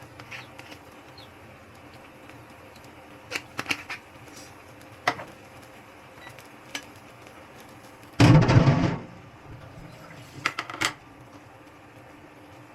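Scattered light clicks and knocks of kitchen items being handled, with one loud, rough burst lasting under a second about eight seconds in.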